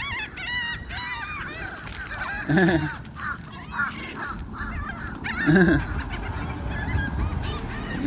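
A flock of seagulls calling over one another: many overlapping squawks, with a louder, lower call about every three seconds.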